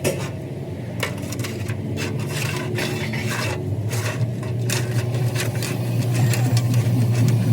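Metal scraping and clinking at irregular intervals as tools work on metal parts, over a steady low machine hum that grows slightly louder near the end.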